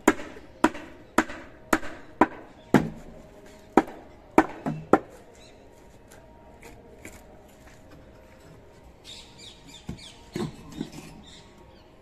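A hammer strikes a wooden prop bracing a concrete column's wooden formwork, about two blows a second for roughly ten blows. It stops about five seconds in, then a few lighter knocks come near the end.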